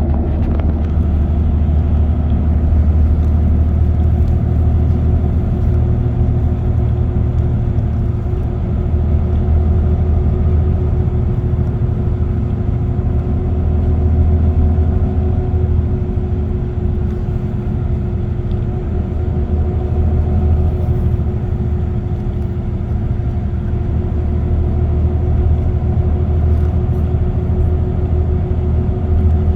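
A car cruising at steady speed on an expressway: a continuous low rumble of tyres and engine, with a steady drone that rises slightly in pitch toward the end.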